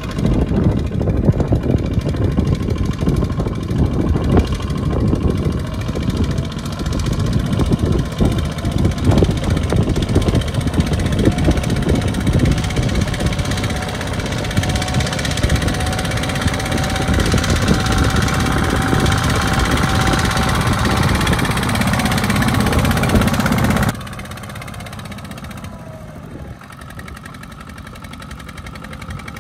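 Single-cylinder diesel engine of a two-wheel walking tractor running in a rapid, steady chug while it hauls a loaded trailer of rice sacks through mud. The sound drops suddenly to a quieter level a few seconds before the end.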